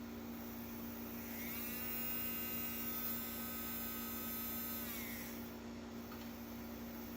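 Small DC motor, of the rugged car window or door-lock accessory kind, spinning up about a second in, whining steadily at roughly half speed for some three seconds, then winding down and stopping. A steady electrical hum runs underneath.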